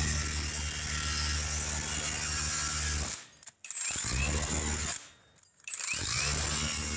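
Scans SC5200 20-volt brushless SDS rotary hammer running in hammer-only mode, its flat chisel bit chipping leftover flash off the edge of a concrete slab. It hammers in three runs, stopping briefly twice, at about three seconds and about five seconds in.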